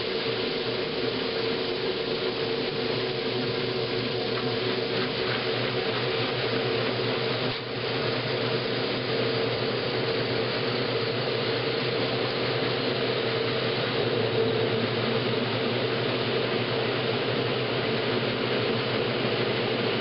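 1963 Maytag A700 top-loading washer in its spin, the basket whirling the load: a steady motor-and-drive hum with an even hiss over it, dipping briefly about seven and a half seconds in.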